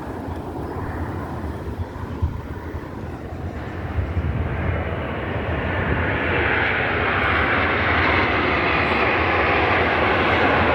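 Airplane engine noise during an air show pass, a rushing roar that builds from about four seconds in and grows steadily louder toward the end as the aircraft approaches.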